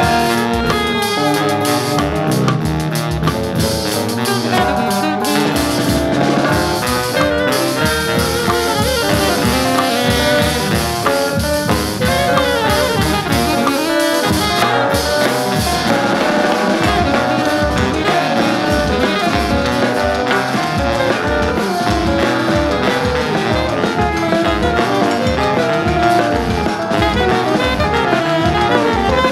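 Jazz quintet playing an instrumental swing passage, with drum kit keeping a steady beat under horn lines.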